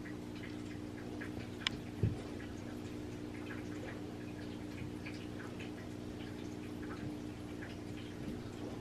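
Quiet room tone: a steady low electrical hum with faint scattered ticks, a sharp click and a soft thump about two seconds in.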